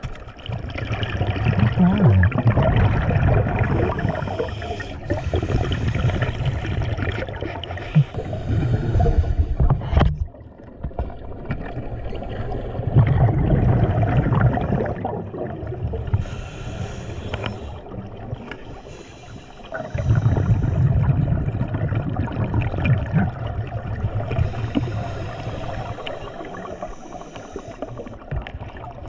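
Scuba diver breathing through a regulator underwater: long bubbling exhalations alternate with shorter hissing inhalations, several breaths in turn.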